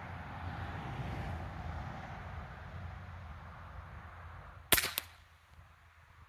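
A single shot from a Hatsan Jet .25 calibre PCP air pistol: one sharp pop about three-quarters of the way in, followed a quarter second later by a second, shorter crack.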